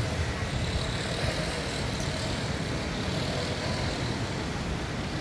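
Steady outdoor background wash of ocean surf breaking on the beach, with no distinct events.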